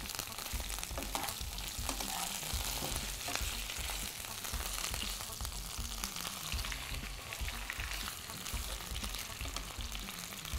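Beef fillet searing in butter and olive oil in a frying pan: a steady sizzle, with a few light taps and scrapes of a metal spoon against the pan as the meat is turned and basted.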